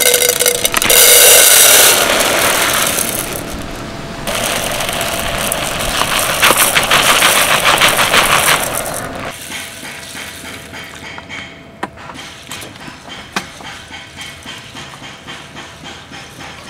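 Dry multigrain rice poured from a plastic bag into a metal camping pot, the grains pattering against the pot in a dense, loud rattling hiss. About nine seconds in the pouring stops, and fingers stirring the grains in the pot give scattered light clicks.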